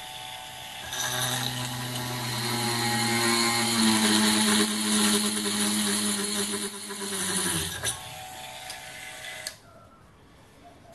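Banggood 220V 72W micro electric drill, with a gear-driven chuck, running at full speed and drilling a 3 mm hole through steel plate. About a second in the bit bites and the sound gets louder, a steady whine with a high hiss of cutting. It eases off about eight seconds in and the drill stops near the end.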